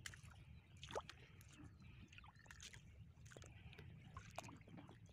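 Faint sloshing and dripping of shallow river water around a person wading and handling a fishing net, with scattered small splashes and one sharper splash about a second in.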